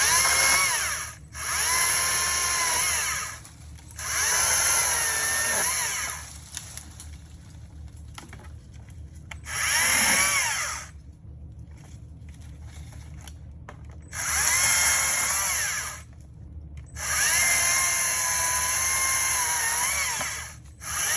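Stihl MSA 120 C battery chainsaw cutting small limbs: its electric motor whines in about seven short bursts of one to three seconds as the trigger is pulled for each cut, with brief pauses between, over a steady low rumble.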